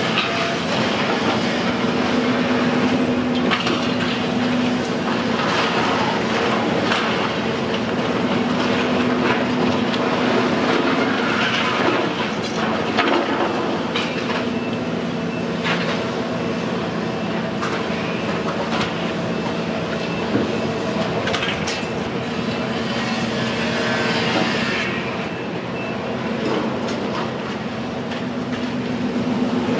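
Steady mechanical rumble with a low, even hum, dotted with irregular clicks and knocks.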